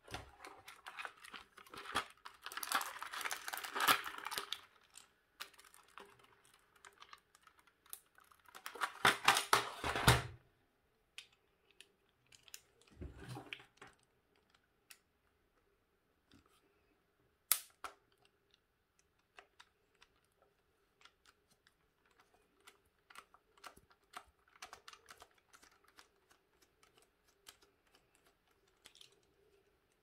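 Handling noise from a Braun Satin Hair 7 hair dryer's plastic housing on a wooden table. A dense patter of clicks and rustles starts about two seconds in and lasts about three seconds, comes again about nine seconds in, and comes once more more briefly around thirteen seconds. After that come scattered light clicks and taps as the housing is worked on.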